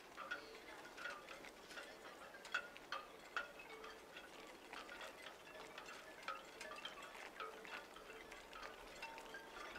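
Faint, irregular tinkling chimes: light strikes several times a second, each with a short ringing note.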